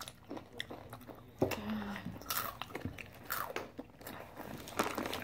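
Takis rolled tortilla chips being bitten and chewed, with scattered short crunches.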